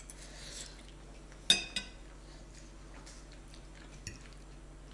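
Metal fork clinking against a ceramic pasta bowl while scooping food: two sharp ringing clinks close together about a second and a half in, and a fainter one near the end.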